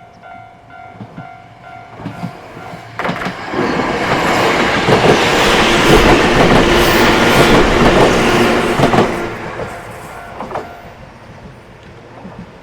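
A train passing over a level crossing, its wheels clattering over the rails, building from about three seconds in, loudest midway, then fading as it moves off.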